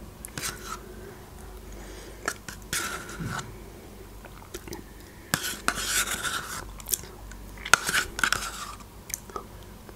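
Yogurt being eaten with a metal spoon from a plastic cup: the spoon clicks and scrapes against the cup, and there are short wet mouth sounds as yogurt is taken off the spoon, in a few bursts about 3, 6 and 8 seconds in.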